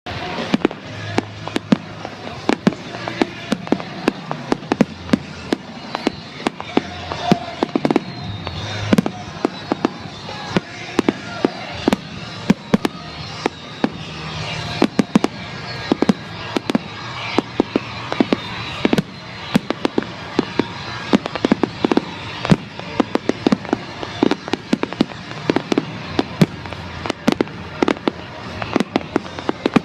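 Fireworks display finale: a rapid, unbroken barrage of bangs and crackles, several a second, over a constant crackling haze.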